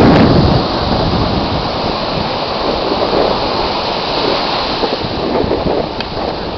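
Ocean surf rushing steadily, with wind buffeting the microphone; loudest in the first half-second.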